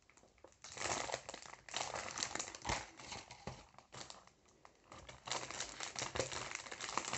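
Clear plastic wrapping around a diamond-painting kit's bead containers crinkling and crackling as it is handled and pulled at. It comes in irregular bursts, with a short lull about four seconds in.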